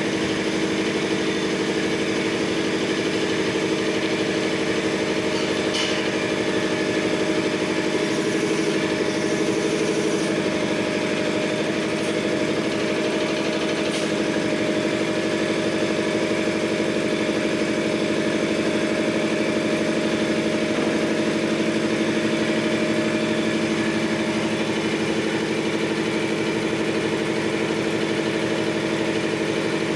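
Maruti 7.5 hp belt-driven piston air compressor on a 500-litre tank, its electric motor driving the finned V-type pump and running at a steady, even hum, with a couple of faint clicks partway through.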